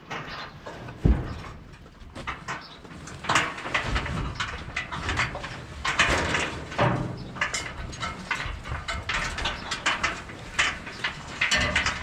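Dry hay rustling and crackling as it is pulled off a bale with a pitchfork and by hand in a metal feed wagon, with one sharp thump about a second in.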